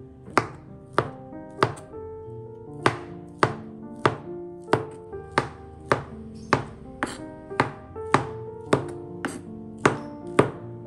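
Kitchen knife slicing shallots and then meatballs on a plastic cutting board, each cut ending in a sharp knock on the board, steadily about every half second. Soft background music runs underneath.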